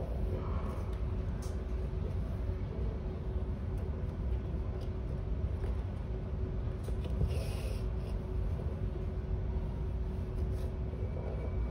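Steady low background rumble with a constant faint hum, and a brief soft rustle a little past halfway.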